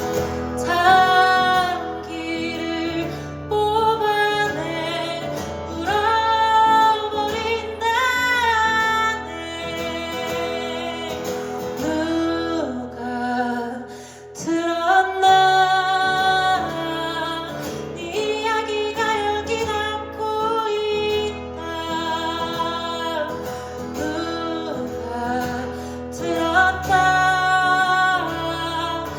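A woman singing a song over guitar accompaniment. The voice drops out briefly about halfway through.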